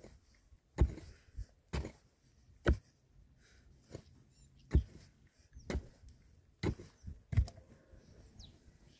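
Repeated heavy knocks of a tool striking in building work: seven sharp strikes, about one a second, with a longer pause near the middle and a few lighter knocks between.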